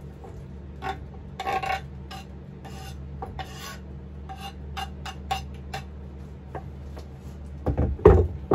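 Knife blade scraping and tapping chopped wild onions off a bamboo cutting board into a skillet, a run of short scrapes and clicks. About eight seconds in, the board is set down on the countertop with a couple of heavy knocks.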